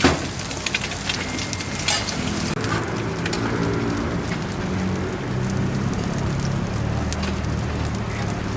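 Burger patties and egg sizzling on a flat-top griddle, with a few sharp clicks of the spatula, and a low hum joining in about two and a half seconds in.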